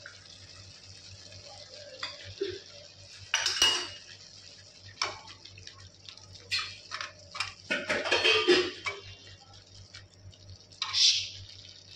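Steel ladle scraping and knocking against a steel kadai as a thick masala gravy is stirred, in irregular clusters of scrapes and clanks.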